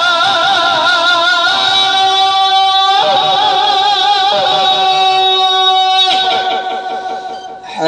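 A man's voice singing the adhan, the Islamic call to prayer, into a handheld microphone. He holds long drawn-out notes with wavering melismatic ornaments, and the phrase dies away near the end.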